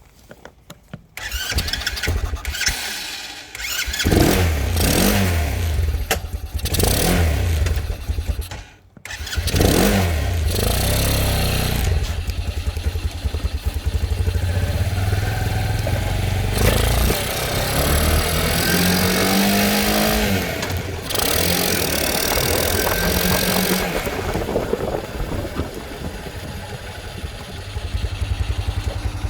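Icebear Fuerza motorcycle engine starting from cold on starter fluid sprayed into the air filter, its too-lean mixture otherwise keeping it from starting. It catches about a second in and is revved up and down, dies briefly around nine seconds in, then restarts and keeps running, revved again before settling to idle.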